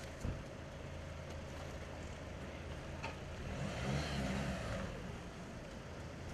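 Motor vehicle engine running steadily, growing louder for about a second near the middle, with a single knock just after the start.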